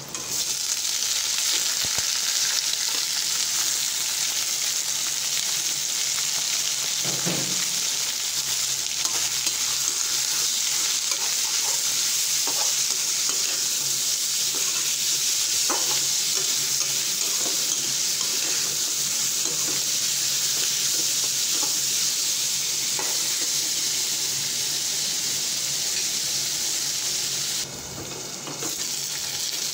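Pork frying in hot oil with onions in an aluminium wok: a steady sizzle with a few spatula scrapes. It drops sharply near the end as a lid goes on the wok.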